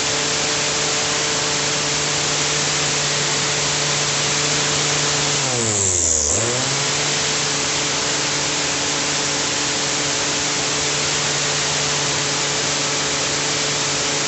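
A Tramontina electric lawn mower running steadily on its first run after assembly: a constant motor hum with the whir of the spinning blade. About six seconds in, the pitch dips briefly and recovers.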